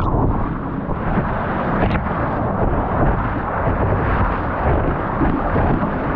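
Steady, loud roar of surf and rushing water right at a GoPro's microphone.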